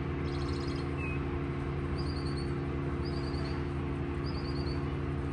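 A songbird calling: a quick high trill, then short phrases of four or five high notes falling in pitch, repeated about once a second. A steady low machine hum runs underneath.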